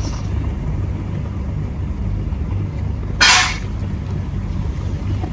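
Steady low background rumble, with one short hissing rustle about three seconds in.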